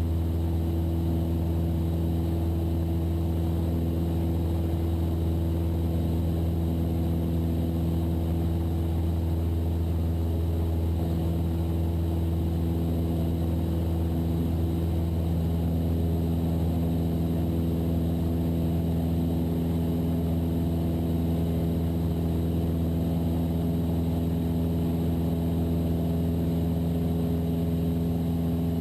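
Cessna 172's piston engine and propeller droning steadily at high power during the climb after takeoff.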